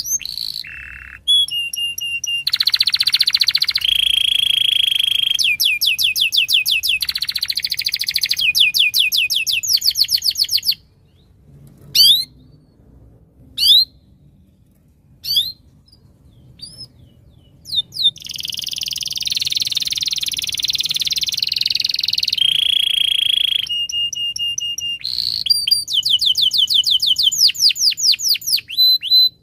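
Domestic canary singing long phrases of rapid trills and held high notes. About eleven seconds in it breaks off for several seconds, giving only a few single chirps, then resumes full song.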